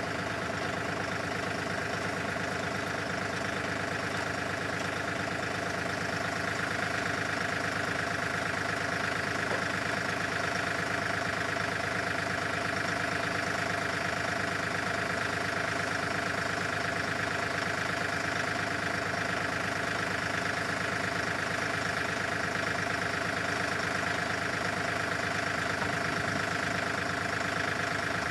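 Tractor engine idling steadily, an even mechanical drone with no change in speed.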